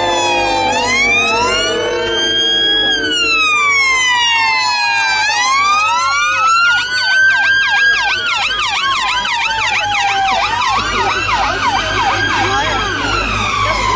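Several police car sirens sounding at once: slow rising and falling wails overlapping one another, with a fast yelp joining in from about six seconds in and running until near the end.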